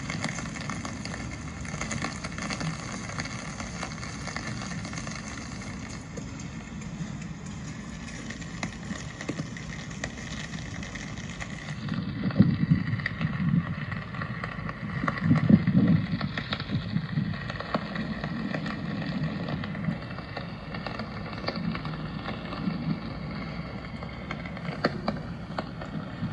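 Rainy city street ambience: a steady hiss and patter of rain with many small crackling ticks, and street traffic passing. Two louder low rumbles come a little under halfway and again past halfway.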